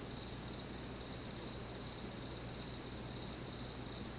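A cricket chirping faintly and steadily, about three high chirps a second, over a low steady electrical hum.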